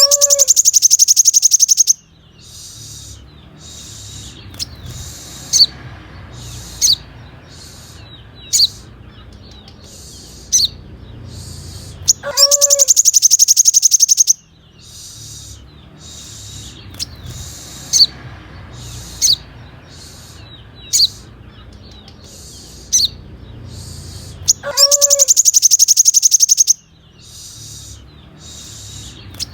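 Looped recording of a 'colibri manggar' sunbird song, played as tutoring material for caged crimson sunbirds. A loud, high, rapid trill lasts about two seconds, then sharp single high chips follow every second or two. The pattern repeats about every twelve seconds over a faint low hum.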